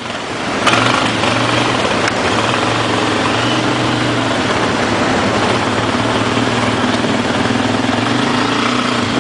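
ATV engine running at a steady pace without big revs, with a brief sharp knock about a second in.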